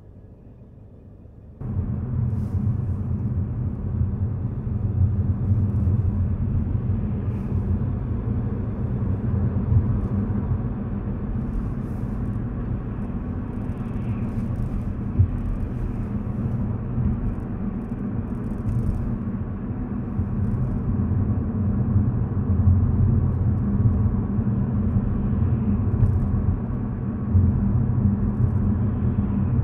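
A car driving: steady low rumble of road and engine noise, which starts abruptly about two seconds in.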